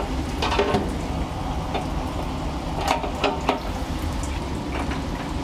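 Metal spit of a gas-fired rotisserie clicking and knocking as it is fitted into the drum's mount, a couple of sharp clicks about half a second in and a few more around three seconds, over a steady hiss.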